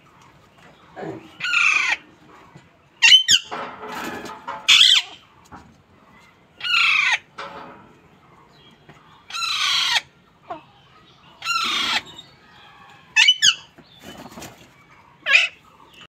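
Parakeets calling: loud, harsh calls of half a second to a second, each falling in pitch, repeated about every two seconds, with a few short squawks in between.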